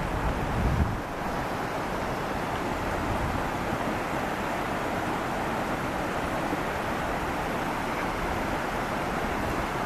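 Shallow stream rushing over a stony road crossing, a steady rush of water. A brief low rumble just under a second in.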